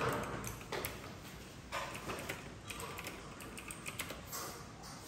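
Irregular light clicks and taps, with a short slurp of instant noodles from chopsticks near the end.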